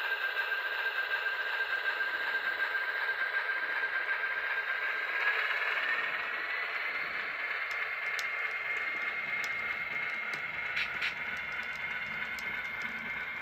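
Model train rolling along the track: the locomotive's small electric motor gives a steady high whine that rises in pitch about five or six seconds in as the train speeds up, over a light rattle of the wheels on the rails. A few sharp clicks come later, from the wheels crossing rail joints.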